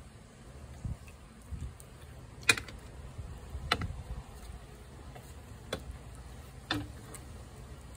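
Tabby cat eating shredded wet food from a plate: irregular sharp, wet clicks of its chewing and licking, the loudest about two and a half seconds in, with a few more spaced a second or two apart.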